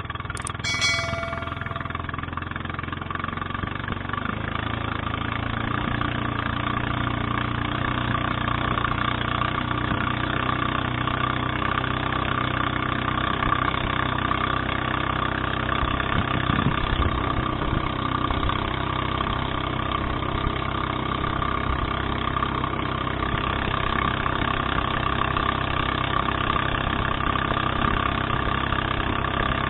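The small motor of an outrigger fishing boat runs steadily under way, picking up slightly a few seconds in, with water rushing along the hull. A click and a short chime come right at the start.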